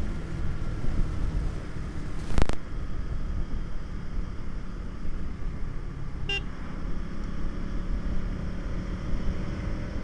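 KTM Duke motorcycle riding along a road: steady engine and road rumble. A single sharp knock comes about two and a half seconds in, and a brief high toot a little past six seconds.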